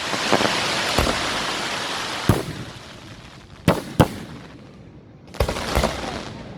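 Fireworks going off: a long crackling hiss over the first few seconds, cut by several sharp bangs of bursting shells, two of them close together about four seconds in, and another burst with crackle near the end.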